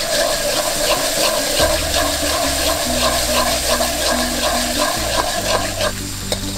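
Ground spice paste frying in hot oil in a wok: a steady, dense sizzle full of small crackles as it is stirred with a spatula.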